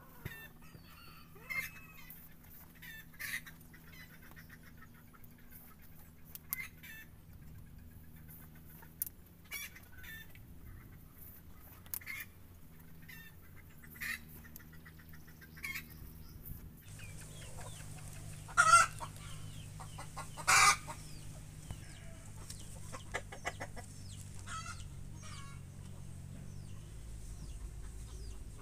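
Domestic chickens clucking and calling, short calls every second or two, with two much louder calls about two-thirds of the way through. A low steady hum runs underneath.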